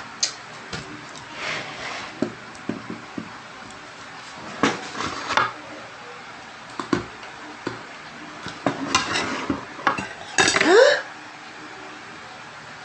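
A metal fork clinking and scraping on a ceramic plate as a plate of fried noodles is stirred, in short scattered knocks, with a louder burst of noise near the end.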